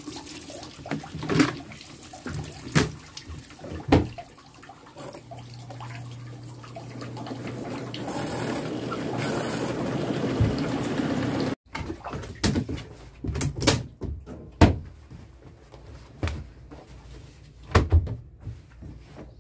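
Top-loading washing machine filling, water pouring from the fill inlet into the plastic drum with a few knocks; the rush of water grows louder for several seconds and cuts off suddenly. Then comes a run of scattered knocks and rustles as wet jeans are handled on the machine.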